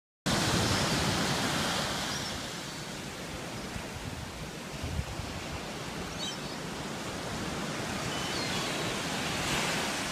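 Small waves breaking and washing up a sandy beach: a steady wash of surf noise, louder in the first couple of seconds, with a few faint high chirps now and then.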